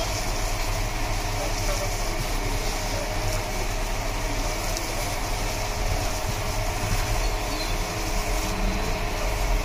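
Steady low hum and rumble of stall and street background, with dry puffed rice, boondi and potato rustling against a steel tray as gloved hands toss and mix them.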